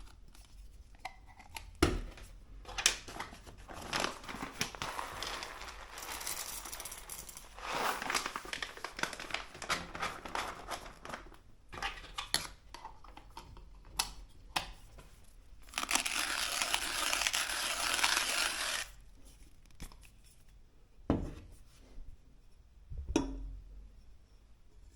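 Etzinger ETZ-I hand coffee grinder crunching beans as the handle is turned, in uneven crackling spells with a steadier stretch near the middle and a few sharp knocks.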